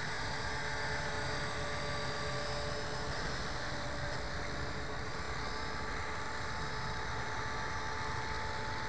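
450-size electric RC helicopter in flight, its brushless motor and gears giving a steady whine of several held tones over a rushing noise.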